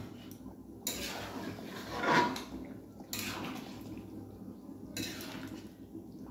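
Wooden spatula stirring thick chicken and potato curry in a metal kadai, scraping against the pan, with a louder stroke about two seconds in.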